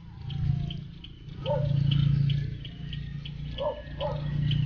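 A man making closed-mouth "mmm" hums of enjoyment while chewing fruit: three drawn-out low hums, with short mouth sounds between them.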